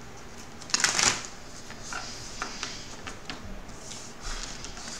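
A deck of tarot cards being shuffled by hand: a loud rush of cards about a second in, then scattered lighter card clicks and taps.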